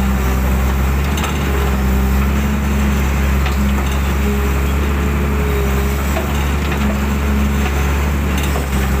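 Hydraulic excavator's diesel engine running steadily under load as the boom and bucket work a ditch, with a fainter higher hydraulic whine that comes and goes.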